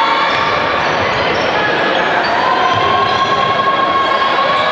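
Sounds of an indoor basketball game: a ball bouncing on the court over a steady loud din of the hall, with drawn-out high squeaks.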